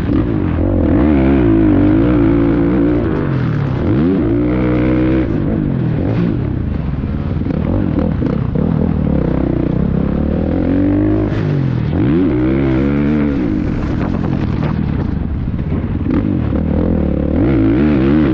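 Two-stroke motocross bike ridden hard: the engine revs up and drops back again and again, climbing sharply in pitch as it accelerates out of turns and backing off between.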